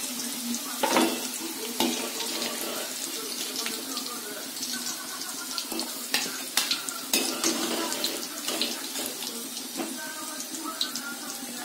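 Aloo kachoris deep-frying in hot oil in a kadhai on medium heat: a steady sizzle with crackles. Several sharp metal clicks, about a second in and again around six to seven seconds in.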